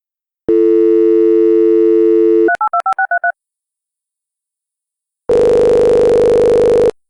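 Telephone sound effects: a steady dial tone for about two seconds, then a quick run of about seven touch-tone dialing beeps. After a short silence comes a single ringback tone of about a second and a half, the line ringing at the other end.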